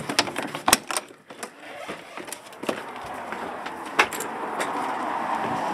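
A door being opened, with a run of sharp clicks and knocks from its latch and frame in the first couple of seconds. Then a steady outdoor background noise swells up and holds, with one more sharp click about four seconds in.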